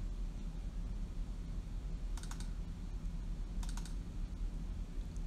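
Quick clicks of a computer mouse button, two short double-click clusters about a second and a half apart, over a steady low hum.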